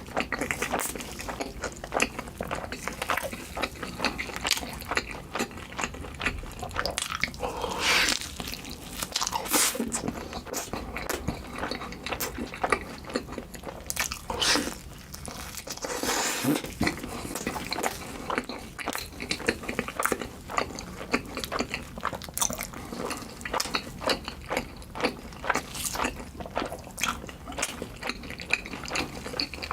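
Close-miked eating: repeated crunchy bites and chewing, with crisp crunches several times a second and a few longer, wetter smears.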